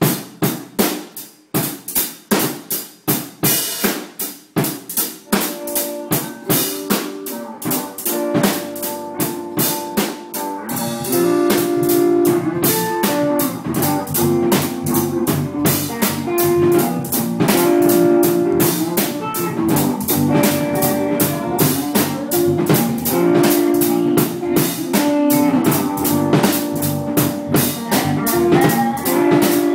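A small band rehearsing instrumentally: a drum kit plays alone at first with snare and rimshot hits, then pitched notes from a guitar come in about six seconds in, and from about eleven seconds the full band plays together, louder and fuller.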